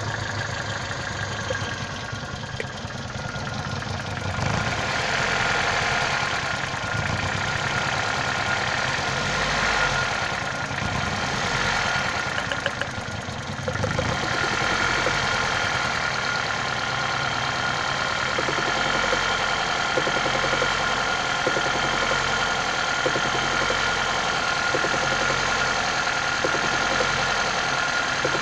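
Toyota 5E-FE 1.5-litre four-cylinder petrol engine running with a knock. The note shifts during the first half, then settles. The engine was rebuilt a year ago with a new crankshaft and bearings, and the owner does not know the cause.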